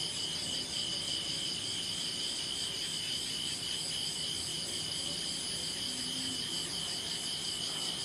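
Crickets chirping in a steady chorus, a continuous high pulsing trill.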